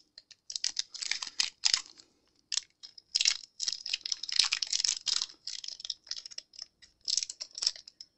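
Foil wrapper of a Pokémon Crown Zenith booster pack crinkling and tearing as fingers work it open, in quick irregular bursts with brief pauses.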